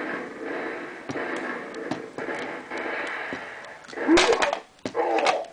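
Small speaker of an electronic wrestling arena playset playing a steady recorded arena sound, with scattered sharp plastic clicks and knocks. About four seconds in, a short, louder recorded sound cuts in, and a briefer one follows near the end.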